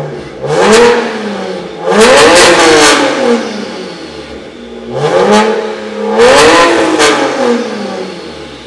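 BMW 335i Touring's turbocharged 3.0-litre straight-six, converted to a big single turbo, being free-revved while standing still. It is blipped hard four times in two pairs, and each time the pitch climbs and falls back. There are sharp cracks near the top of the revs.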